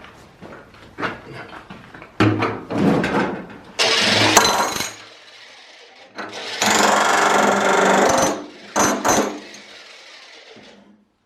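A power tool running in two bursts of about one and two seconds, with knocks and clatter of metal work between them.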